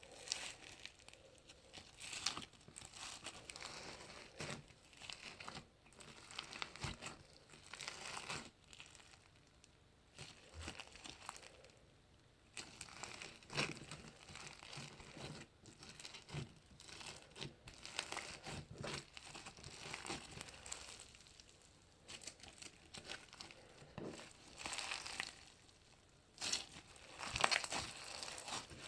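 Crunchy pearl slime being squeezed and worked by hand, giving crackling crunches in irregular clusters with short pauses between.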